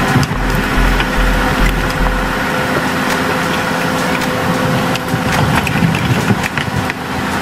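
Diesel engine of a tracked forestry forwarder running steadily, with a deep rumble in the first couple of seconds and sharp cracks and snaps of wood a little past the middle.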